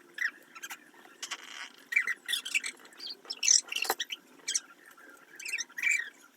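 Close-up eating sounds: someone chewing food, making irregular short wet clicks and crackles.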